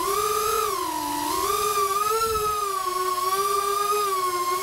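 FPV quadcopter's brushless motors whining, the pitch sliding down and up with the throttle, then holding nearly steady from about halfway in.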